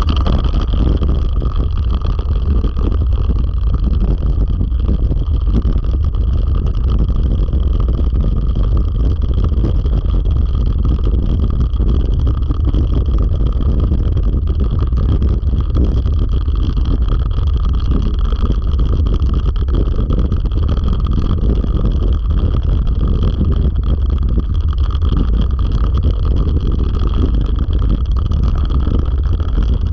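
Steady rolling rumble and rattle of a three-dog dryland rig running over a dirt trail, with heavy wind noise on the microphone. It holds constant throughout.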